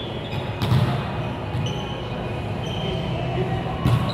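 Two sharp thuds of a volleyball being hit or bounced, about two-thirds of a second in and again near the end, over steady low background noise in the hall.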